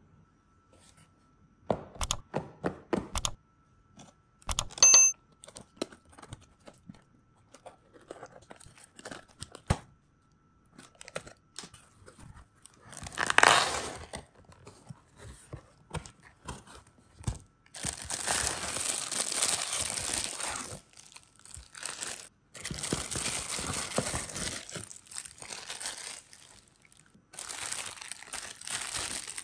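Unboxing handling noises. A few sharp knocks and a loud tear come as the cardboard box is opened, then long stretches of crinkling plastic as the figurine phone holders, sealed in clear plastic bags, are lifted out and handled.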